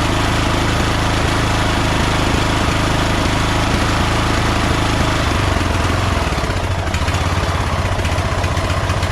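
Craftsman LT1000 lawn tractor's rebuilt Kohler Command engine running steadily during a drive test. The engine note changes about six seconds in, then runs steadily again.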